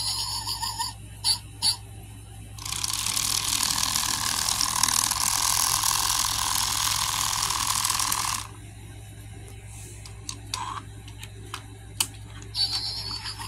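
Crazy Planet Robo-Dog robot toy: a few short electronic beeps, then its small gear motor whirring steadily for about six seconds as it moves, then scattered plastic clicks as the toy is handled, with beeps starting again near the end.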